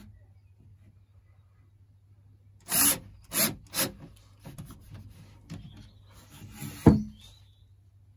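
Pipework being handled and set in place against the wall: three short scraping rubs, a few softer scuffs, then one sharp knock near the end.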